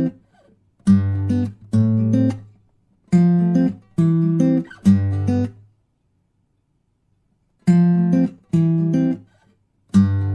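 Background acoustic guitar music: single strummed chords that ring and fade, played in short groups, with a pause of about two seconds midway.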